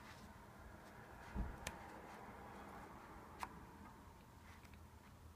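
Quiet handling of a Blu-ray disc and the stiff cardboard pages of its book-style case: a soft thump about a second and a half in, then two sharp clicks, over faint room tone.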